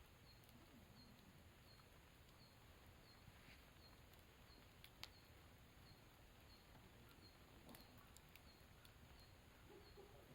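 Faint wood campfire burning, with a few scattered crackles and one sharper pop about five seconds in.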